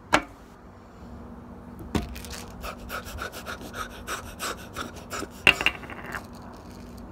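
Close handling noise of a small plastic cup: a sharp knock just after the start, then a run of light clicks and rubbing at about four a second, and another sharp click about five and a half seconds in.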